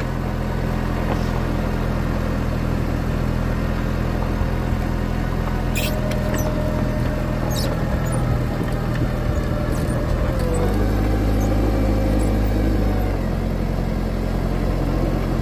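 Forklift engine running as the machine drives across the yard, a steady engine note with a few light rattles. About ten seconds in the engine note changes and gets a little louder for a couple of seconds, then settles back.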